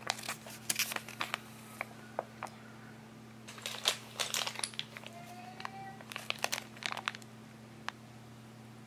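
A folded paper instruction sheet being handled and unfolded: crinkling and rustling in short clusters about a second in, around four seconds and again around six to seven seconds, over a faint steady hum.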